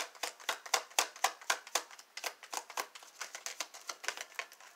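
A deck of oracle cards being shuffled by hand: a rapid run of crisp card clicks and slaps, about four a second, softer in the second half.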